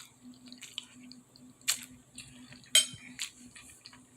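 Cutlery clinking against a plate during a meal: a few sharp clinks about one and a half and nearly three seconds in, the second the loudest, over a faint steady hum.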